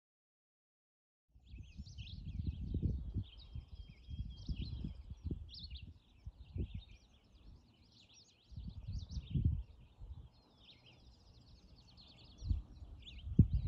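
Songbirds singing outdoors, a busy mix of chirps, trills and rapid twitters, starting about a second in. Irregular low rumbling rises and falls underneath.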